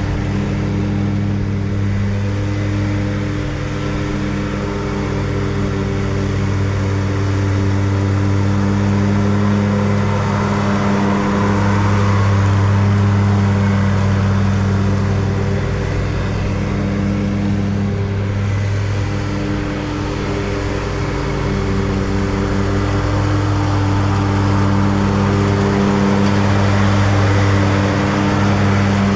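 Exmark Turf Tracer 60-inch walk-behind mower running steadily while cutting grass: its Kohler EFI engine holds an even pitch under the whir of the spinning deck blades.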